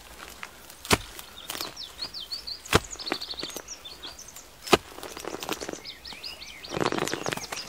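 A digging hoe biting into earth and roots: four sharp strikes a second or two apart, then a rustling scrape of loosened soil near the end. Small birds chirp in the background.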